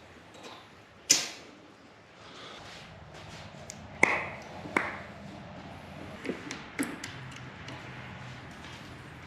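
Sharp metal clanks and pings from steel parts knocking together: a loud one about a second in, two more about four to five seconds in, and lighter knocks after.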